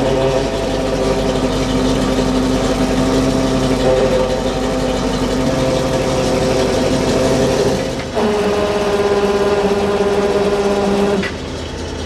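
Truck-mounted boom's engine and hydraulics running steadily while it hoists a wooden beam. The tone changes about eight seconds in, and the engine drops back to a lower, quieter run just after eleven seconds.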